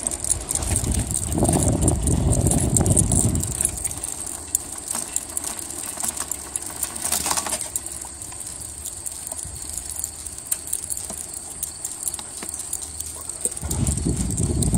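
Jogging footsteps on pavement with the leash's metal clips jingling, and wind buffeting the microphone about a second in and again near the end. A steady high-pitched hiss runs underneath.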